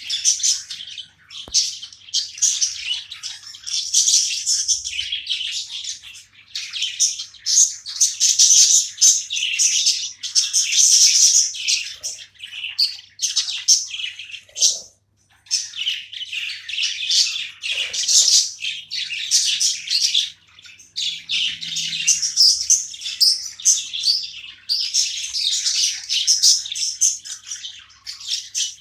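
Budgerigars chattering and warbling, a continuous stream of fast, high-pitched chirps and squawks that breaks off briefly about halfway through.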